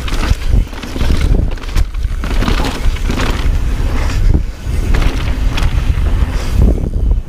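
Mountain bike descending a dirt trail at speed: a heavy rumble of wind on the microphone, with the irregular clatter and rattle of tyres and bike over rough ground.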